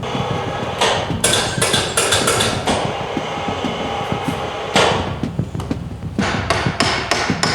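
Repeated hammer blows in irregular runs of quick strikes, knocking apart the wooden joints of a danjiri being dismantled.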